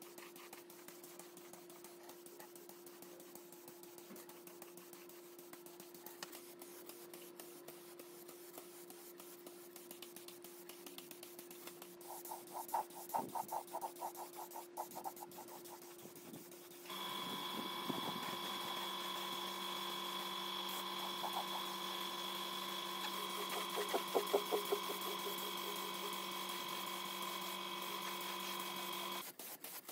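A workshop machine motor hums steadily. About 17 s in, a second, louder machine starts with a steady whine and runs until just before the end, with short rapid bursts of tool work on top.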